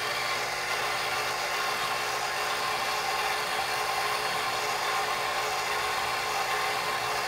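Sherline milling machine running steadily, its spindle motor giving a constant hum and whine as the end mill makes a first light pass along a shaft for a keyway, only skimming the high spots of the uneven surface.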